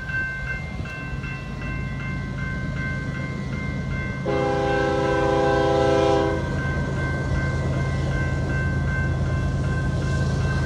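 Railroad grade crossing warning bell ringing rapidly over a steady low rumble. About four seconds in, the approaching BNSF diesel locomotive sounds its multi-note air horn in one chord blast of about two seconds.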